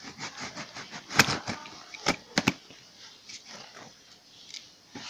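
Packaging being handled: a run of sharp knocks and clatters, the loudest about a second in and three more around two and a half seconds in, with lighter taps between.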